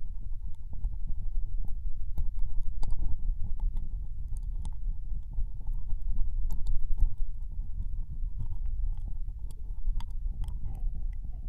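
Ear licking close to a binaural microphone's right ear: irregular wet mouth clicks and smacks over a steady low rumble.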